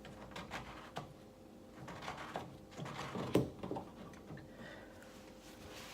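Plastic clicks and knocks from handling a washing machine's drain-pump filter cover as it is opened to drain, with a louder knock about three and a half seconds in.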